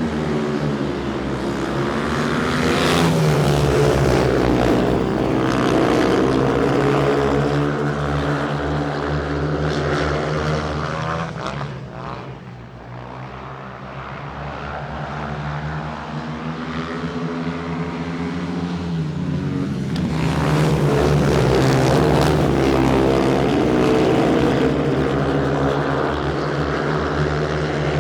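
Propeller aircraft engine flying past twice, growing loud then fading, its pitch falling as each pass goes by.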